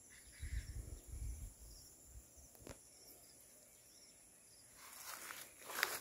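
Footsteps on dry leaf litter and stony soil: a few dull thumps early, then crunching that is loudest near the end, over a faint steady high insect drone.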